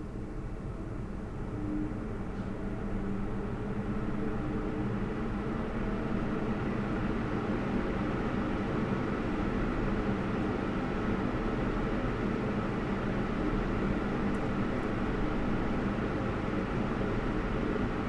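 PC CPU radiator fans running at 100%: a steady rush of air through the radiator that grows louder over the first few seconds and then holds. It is a normal fan sound, with no high-pitched whine.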